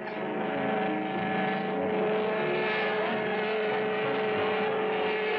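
Propeller plane's engine running steadily in a cartoon sound effect: an even drone with a constant whining tone.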